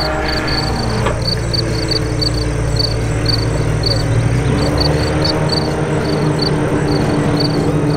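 Small propeller-driven bush planes running low over the water, their engine note sliding down and then rising again in pitch as they pass.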